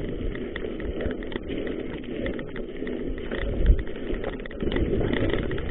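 Mountain bike ridden fast over a rough dirt trail: a steady rumble of the tyres on the ground with many small rattling clicks from the bike.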